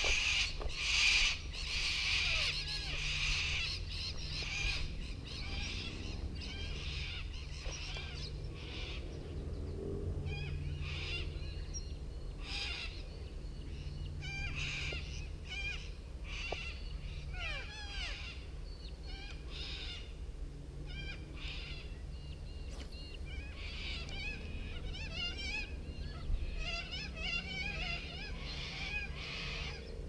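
Birds calling and chirping from the bush around a creek, many short calls and trills overlapping through the whole stretch, over a steady low rumble.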